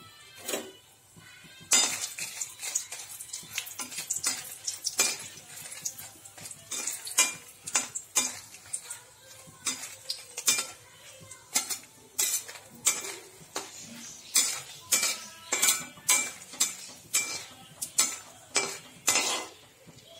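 A steel ladle scraping and clanking against a black wok, stirring dried red chillies as they fry in oil, with a faint sizzle underneath. The strokes start about two seconds in, irregular at first, then settle into a steady stirring rhythm of about one and a half a second.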